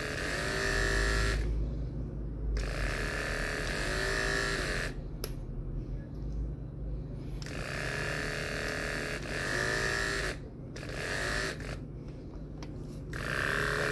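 Andis AGC 2-speed brushless clipper running with a steady whine. The motor cuts out four times and spins back up each time with a short rising pitch, while its slide switch sits halfway between positions.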